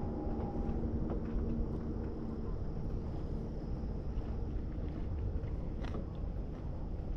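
Wind rumbling on the microphone over open water, with a faint steady hum that fades out a couple of seconds in and a few faint ticks.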